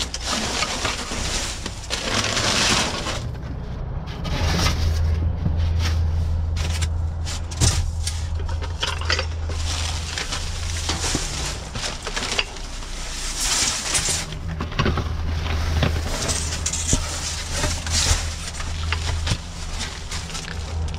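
Plastic bags, bubble wrap and paper packaging rustling and crinkling as a gloved hand digs through a dumpster, with scattered clicks and light knocks from objects being shifted. A steady low hum sits underneath for long stretches.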